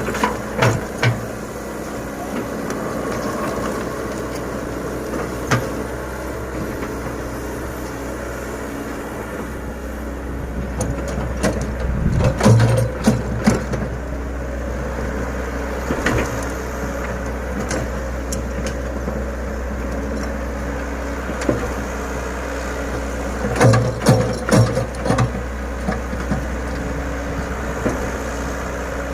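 Komatsu PC100 hydraulic excavator's diesel engine running steadily while it works, with clusters of knocks and clanks from the machine a few times.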